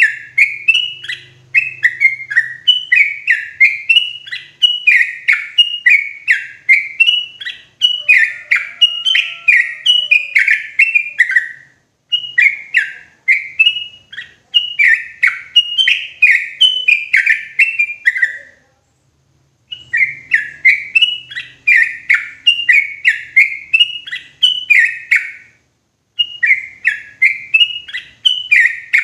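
Yellow-vented bulbul (trucukan) singing loud and clear: fast runs of short, bubbly, downslurred notes, broken by brief pauses a few times.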